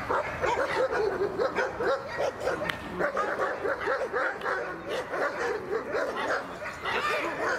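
A dog yipping and barking rapidly and without a break: short, high, whining yelps, several a second.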